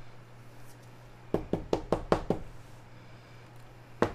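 A stack of trading cards knocked edge-down on the tabletop to square it: a quick run of about six sharp knocks about a second and a half in, and another knock at the very end.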